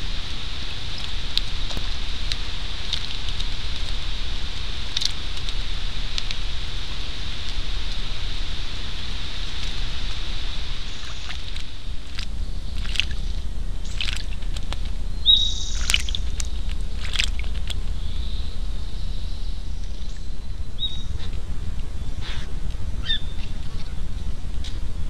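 Woodland outdoor sound from a trail camera: a steady low rumble and hiss, with short bird chirps and calls scattered through the second half.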